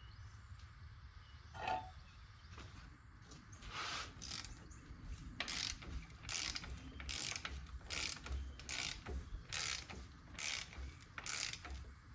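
Hand ratchet being worked in repeated strokes, its pawl clicking about once a second, starting about four seconds in.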